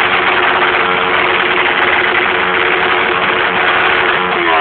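Motorcycle engine running steadily and loudly, its pitch held, then starting to rise sharply as it is revved near the end.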